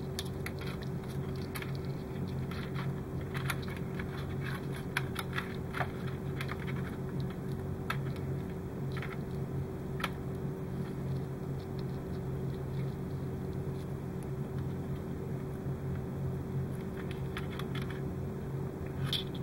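Faint rustling and scattered small clicks of thin insulated LED wires being twisted together by hand, mostly in the first half, over a steady low hum.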